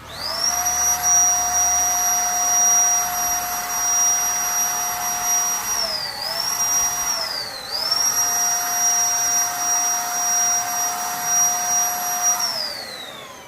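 Zipper electric paint spray gun's motor spinning up, then running with a steady high whine and a hiss of air. It dips briefly in pitch twice around the middle and winds down near the end.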